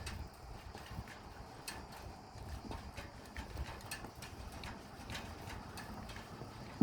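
Irregular sharp clicks of goats' hooves on hard ground, over a low rumble.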